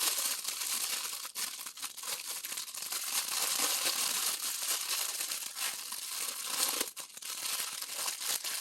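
A small paper bag being handled and opened, with continuous crinkling, rustling and tearing of paper that dips briefly twice.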